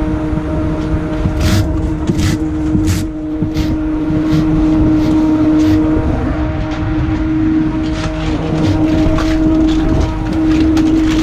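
Mussel-farming boat's engine and deck machinery running steadily: a constant hum over a low rumble, with scattered sharp clicks and knocks.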